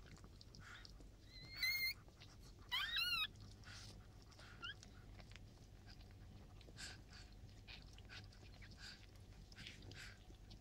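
Newborn Chihuahua puppies squealing: two loud, high, wavering cries about one and a half and three seconds in, and a short rising squeak near five seconds, over soft wet licking as the mother cleans them.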